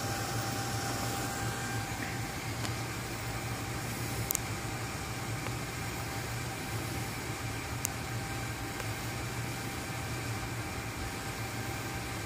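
Desktop PC's stock AMD CPU cooler fan, with the case fans, spinning at high speed as a loud, steady rush of air over a low hum, because the overclocked Phenom X4 9850 is under a full Prime95 stress load. Two brief faint clicks come about four and eight seconds in.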